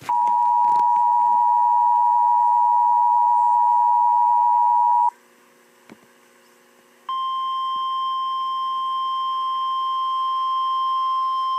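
Emergency Alert System weekly test tones on NOAA Weather Radio. The two-tone attention signal (853 and 960 Hz together) sounds steadily for about five seconds and stops. After a short near-silent gap, the single steady 1050 Hz weather radio warning alarm tone comes on about seven seconds in.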